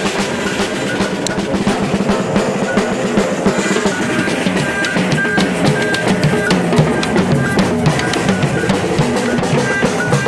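Samba bateria drumming: surdo bass drums and other drums play a steady, driving samba rhythm. From a few seconds in, a short high note repeats within the pattern.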